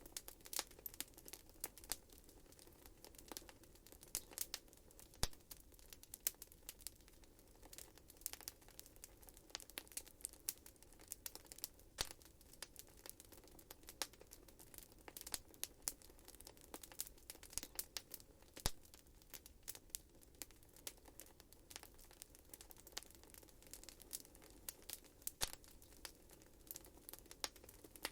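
Wood fire crackling in a fireplace: irregular sharp snaps and pops, several a second, over a faint low hiss of burning.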